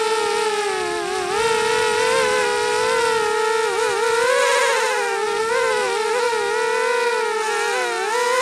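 Eachine Blade 185 mini FPV quadcopter's brushless motors and propellers whining in flight. The pitch wavers up and down constantly with the throttle, dipping briefly about a second in and again near the end.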